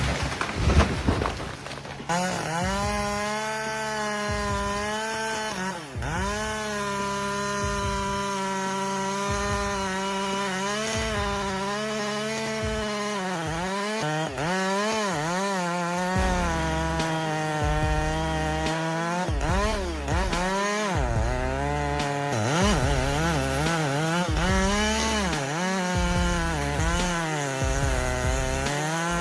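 Two-stroke chainsaw running near full throttle and cutting wood, its pitch dipping again and again as the chain bogs down in the cut and then climbing back. A brief clatter of knocks comes in the first two seconds.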